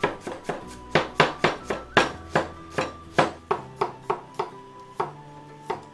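Cleaver chopping garlic cloves on a wooden cutting board: a quick run of sharp knocks, about four a second, that thins out near the end.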